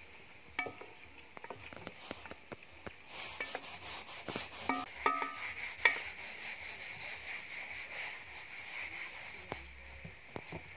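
A wooden spoon stirring tomatoes in a metal cooking pot over a wood fire, with scattered clinks and knocks against the pot over a steady sizzle.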